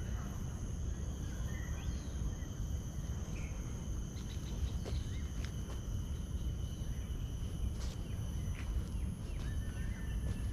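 Insects trilling steadily at several high pitches in garden vegetation, with short bird chirps now and then and a low rumble underneath.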